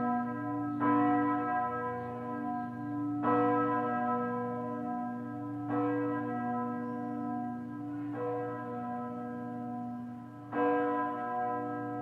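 Large bronze church bourdon cast by Ruetschi in 1927, about three tonnes and tuned to B, swinging and struck by its clapper five times, about every two and a half seconds. Each stroke rings on into the next over a deep steady hum.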